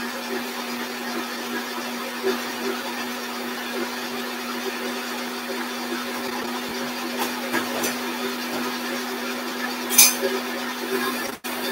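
Electric stand mixer running steadily with its whisk attachment, whipping egg whites: a constant motor hum and whirr. There is a single sharp clink about ten seconds in.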